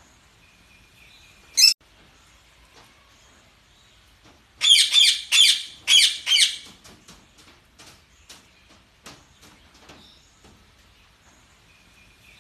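Parakeets chirping and squawking: one sharp chirp a couple of seconds in, then a loud run of about five quick high calls around the middle, with soft scattered chirps between.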